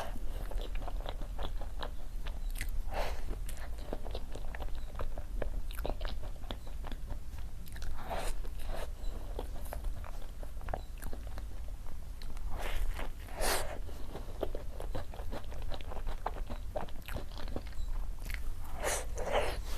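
Close-miked eating: bites and chewing with frequent small crunches and crackles, a few louder clusters of them spaced several seconds apart, over a steady low hum.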